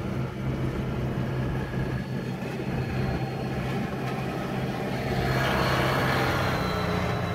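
Engine noise heard from inside a car: a steady low hum, with a louder, broader engine sound swelling from about five seconds in as a Holder compact sidewalk tractor plowing snow passes close alongside.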